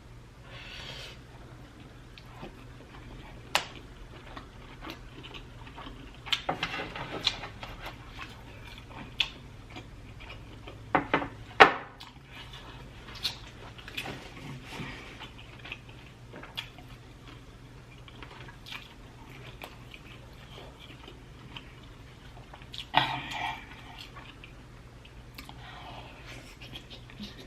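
Close-up eating sounds: chewing and biting into spicy sauce-coated prawns, broken by scattered sharp clicks and short wet bursts. The loudest come a little before the middle, and another cluster comes near the end.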